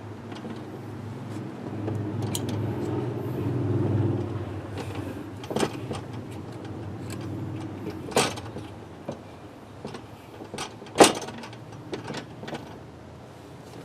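Knocks and clatter of a metal LED light bar being handled and set down on a board laid across a bathroom scale, the loudest knock about eleven seconds in. Under it a steady low hum swells during the first few seconds, then fades.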